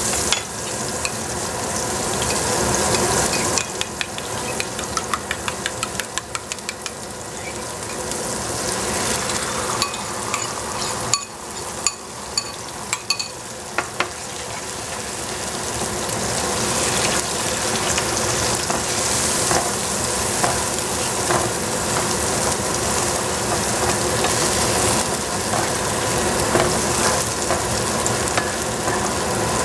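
Shiitake mushrooms sizzling in oil in a frying pan, stirred with a wooden spatula. A run of quick light taps comes a few seconds in and a few sharper knocks around the middle, and the sizzle grows louder after beaten egg goes into the pan.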